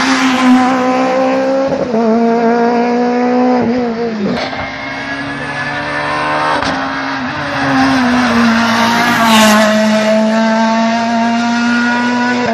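Rally car engine at high revs, passing close and pulling away up the stage. Its note drops and climbs again at each of several gear changes.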